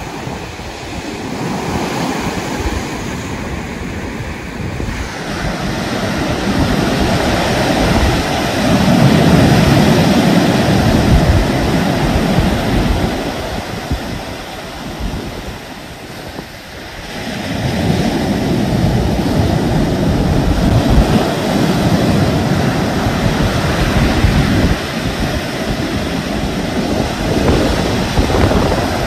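Ocean surf breaking and washing up a sandy beach, swelling and easing with the waves, with a lull a little past halfway. Wind rumbles on the microphone underneath.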